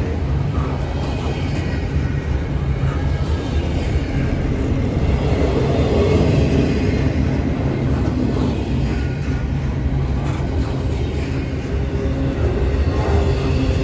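Double-stack intermodal freight train rolling past, a steady rumble of its well cars' wheels on the rails.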